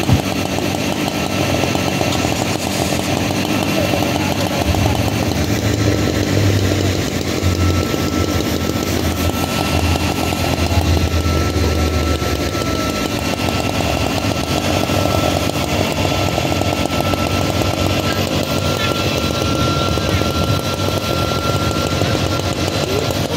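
Fire engine's motor running steadily to drive its pump, mixed with the rush of hose water spraying onto a burning car's engine bay. A thin, steady high whine joins in about seven seconds in.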